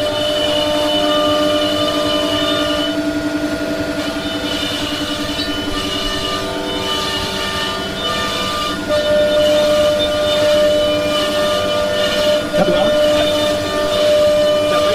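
Biesse Rover S CNC router's HSD spindle cutting a sheet panel: a steady whine of several tones over an even rush of noise, the tones shifting in pitch a few times as the cut goes on.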